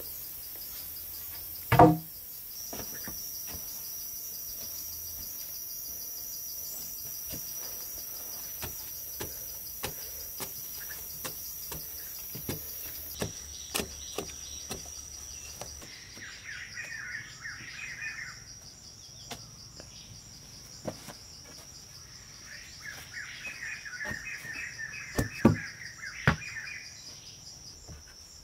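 Forest insects keep up a steady high-pitched drone while a short-handled hoe chops into packed earth in scattered knocks. There is a loud thud about two seconds in and two more near the end. Birds chirp in rapid bursts twice in the second half.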